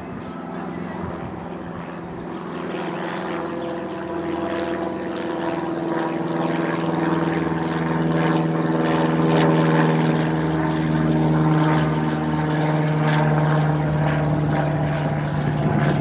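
An engine's steady drone, one held pitch with many overtones, growing louder over the first several seconds and then staying loud.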